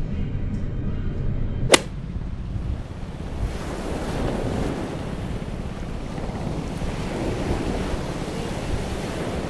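A low rumble, cut off by a sharp click about two seconds in. Then sea surf washing onto a sandy beach, with wind buffeting the microphone.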